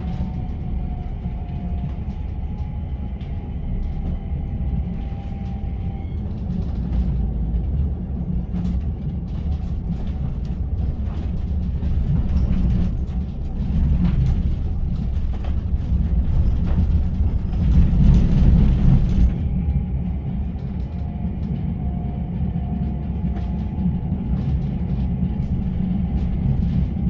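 Modern low-floor tram running, heard from inside the car: a steady low rumble of wheels on rail with scattered clicks and knocks. It is loudest about two-thirds of the way through. A faint whine drifts in pitch near the start and again near the end.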